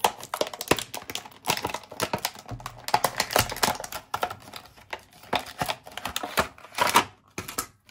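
Packaging and small craft supplies being handled and unpacked: a rapid, irregular run of clicks, taps and rustles.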